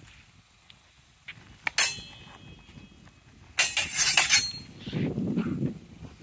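Steel longsword blades clashing in sparring: one sharp clash about two seconds in that rings briefly, then a quick flurry of several clashes with metallic ringing a little later.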